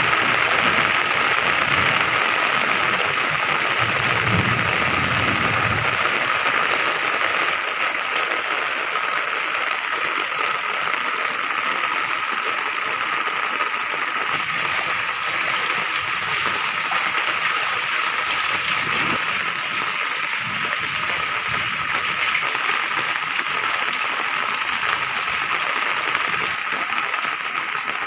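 Heavy rain falling steadily on paving and roofs, with rainwater running across flooded lanes.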